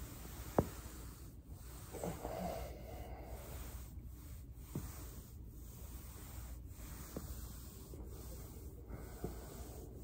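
Body rolling on a textured foam roller on carpet, with breathing and rubbing. A sharp joint crack comes about half a second in, and a few fainter clicks follow.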